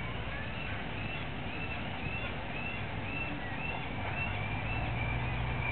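Birds chirping over and over in short, arched calls, about two a second, over a steady low hum.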